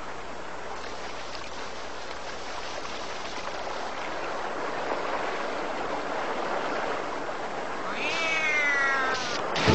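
Animated-cartoon soundtrack: a steady rushing noise that slowly swells. Near the end, a cat-like cry falls in pitch for about a second.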